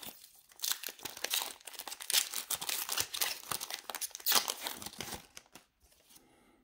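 Foil wrapper of a Pokémon trading card booster pack crinkling and tearing as it is opened, in a run of irregular rustles that stop about five seconds in.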